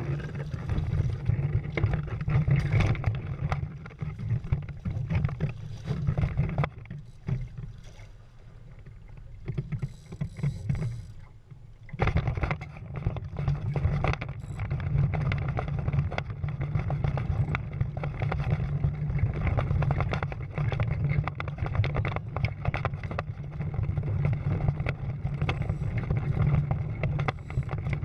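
Water rushing and splashing along the hulls of a Prindle 16 catamaran under sail, with a deep wind rumble on the microphone. It eases off for a few seconds about a third of the way in, then comes back suddenly.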